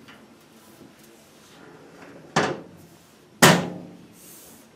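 Hinged front cover of a distribution board being shut: two sharp knocks about a second apart, the second louder, as the cover closes against the board and its door catch.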